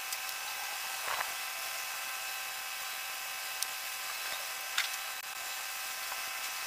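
Steady buzzing hum, with a few faint clicks and taps as hands work on a bare engine block.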